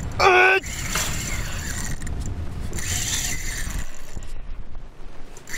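Spinning reel's drag clicking and buzzing as a hooked shark pulls line and dives, with a short loud yell about a quarter second in.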